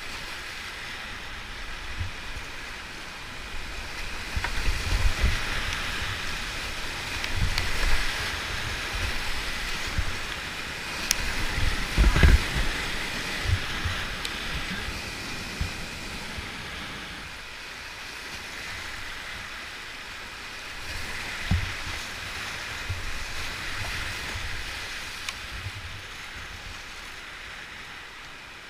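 Whitewater rushing steadily through a steep rapid, heard up close from a kayak, with irregular dull low thumps; the strongest comes about twelve seconds in.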